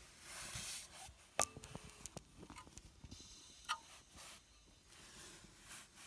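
Scattered light clicks and knocks with faint rustling. The sharpest comes about one and a half seconds in and has a brief metallic ring, and a smaller ringing click follows near the middle.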